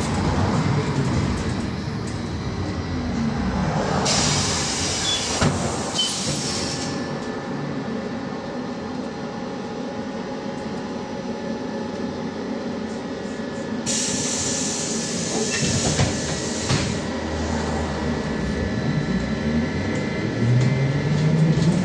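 Cabin sound of a moving VMZ-5298.01 trolleybus: the electric traction drive whines in steady tones over road and body rumble, its pitch rising as the trolleybus picks up speed, briefly about three seconds in and again near the end. Two bursts of hissing come at about four and fourteen seconds in.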